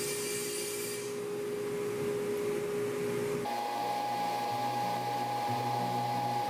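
Table saw finishing a rip cut through a melamine-faced particleboard sheet, the cutting hiss fading about a second in, then the saw running on with a steady whine. Halfway through it cuts off and music with plucked guitar notes takes over.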